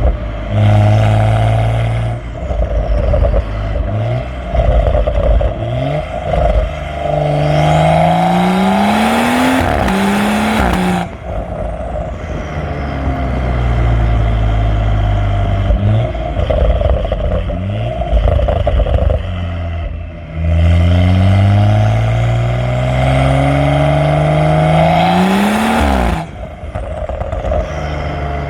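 Exhaust of a BMW M135i's N55 turbocharged inline-six, decatted with the middle silencer deleted and on a stage 1 tune, heard from just above the tailpipe as the car is driven hard. The pitch climbs in repeated pulls through the revs. The two longest pulls, about 7 and about 20 seconds in, each end with a sudden drop as the throttle is lifted.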